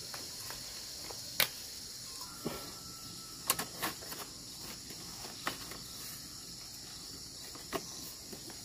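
Steady high-pitched chorus of insects such as crickets, with a few scattered sharp clicks and knocks.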